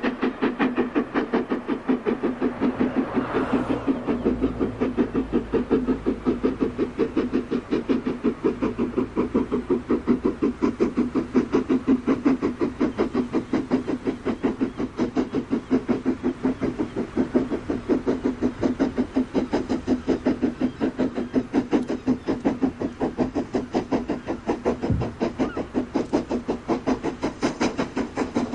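BR Standard Class 4 4-6-0 No. 75069, a two-cylinder steam locomotive with a double chimney, working a train under steam: a steady run of rapid, even exhaust beats.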